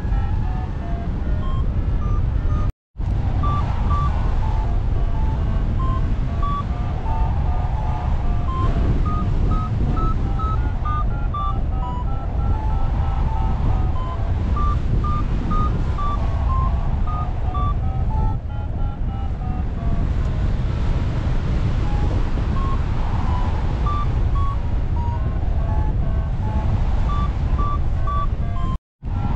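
Wind rushing over the microphone in flight under a paraglider, with a flight variometer beeping in short tones whose pitch steps up and down with the climb rate. The sound cuts out for an instant twice.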